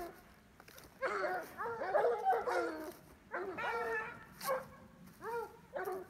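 A pack of dogs yelping and baying: short cries that rise and fall in pitch, several voices overlapping from about a second in, then single cries spaced apart toward the end.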